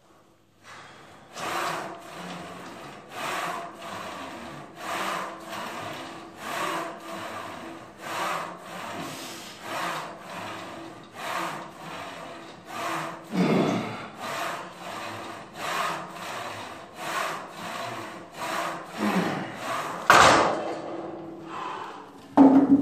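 Rhythmic rasping strokes, about one every 0.8 seconds, in time with the reps of a barbell shoulder set. About 20 seconds in there is a sharp loud clank as the set ends and the bar is put back.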